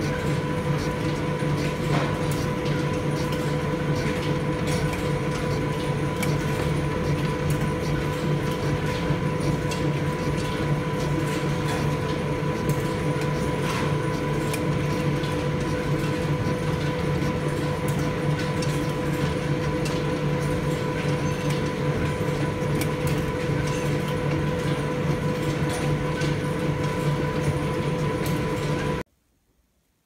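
A 1904 lathe running, its four-jaw chuck spinning a cast block while the tool faces it: a steady mechanical drone with a constant whine and a patter of small clicks. It cuts off suddenly near the end.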